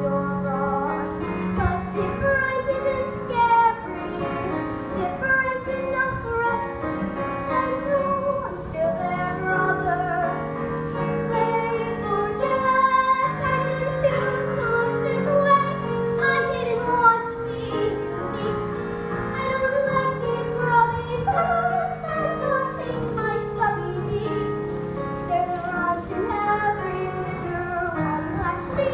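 A young girl singing a slow solo song over a musical accompaniment of held chords.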